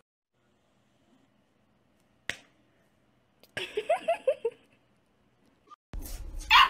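Mostly quiet, with a single sharp click a little over two seconds in and a quick run of short pitched sounds around four seconds. Near the end a dog barks once, loudly.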